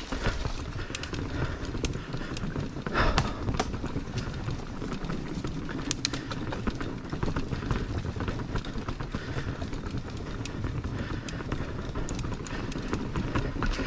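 Mountain bike rolling over a wooden plank boardwalk: a quick, continuous clatter of tyres knocking across the slats and the bike rattling, with a few louder knocks.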